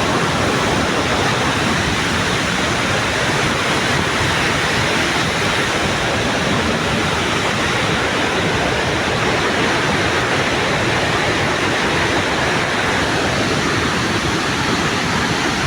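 Steady, loud rush of falling water from Victoria Falls, with no break or change.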